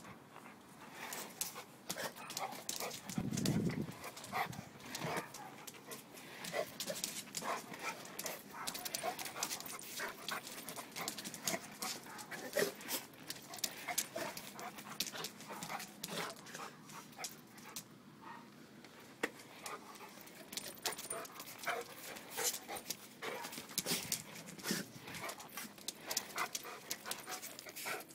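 A pitbull-mastiff mix dog mouthing and tugging at a rollerblade skate on concrete, with many sharp clicks and scrapes throughout and a louder low burst about three seconds in.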